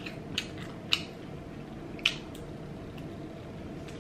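Close-miked wet mouth sounds of someone chewing a bite of hard-boiled egg, with a few sharp lip smacks, about four in the first two and a half seconds.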